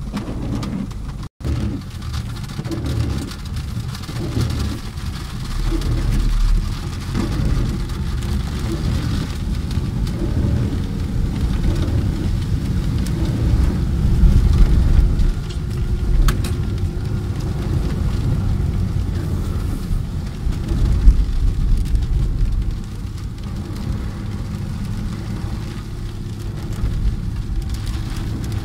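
Water gushing from a wall drain, cut off about a second in; then a car driving through heavy rain, heard from inside the cabin: a steady low rumble of engine and tyres on a flooded road, with rain on the car.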